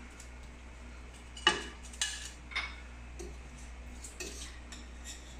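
Metal tongs clinking and knocking against a metal frying pan as toasted sandwiches are lifted out. There are three sharp clinks between about one and a half and two and a half seconds in, then a few fainter taps.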